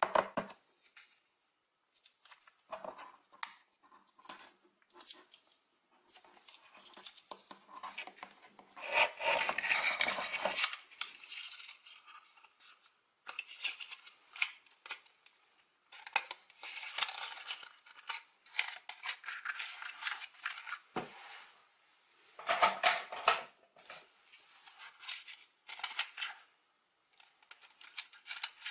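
Hands handling a foam-board toy car kit: scattered clicks and rustles from a plastic AA battery holder and peeled double-sided tape, with a few scraping bursts of a second or two and scissors among the handling sounds.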